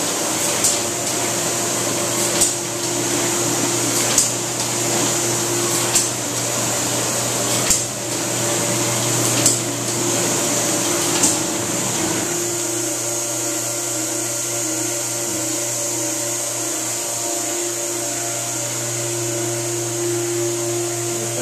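Kirk Rudy paper-handling machinery running: a steady hum with a high hiss, and a sharp clack about every 1.8 seconds. Just after halfway the clacks stop and the machine carries on as a steadier hum.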